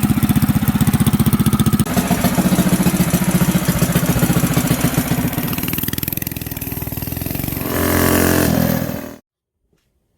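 Small mini bike engine running with a rapid, even firing pulse, then revving up near the end before the sound cuts off abruptly.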